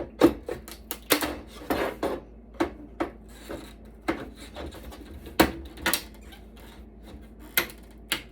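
Irregular knocks, clicks and short scrapes of a metal electronics chassis being handled and worked at by hand while its cover is being freed.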